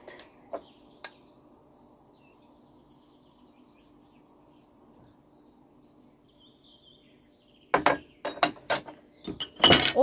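Sharp clicks and knocks from handling a small plastic container and kitchen utensils over a salad bowl, starting in a cluster near the end after a quiet stretch. Faint birdsong and a low steady hum sit underneath.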